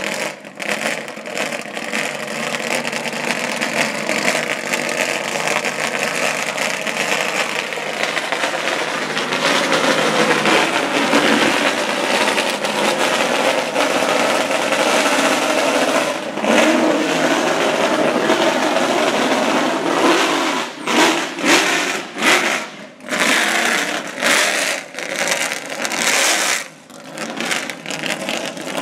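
Engine of a heavily modified Nissan Silvia drift car running loud as the car pulls away, the pitch shifting as it moves. In the last several seconds it comes in short, repeated surges.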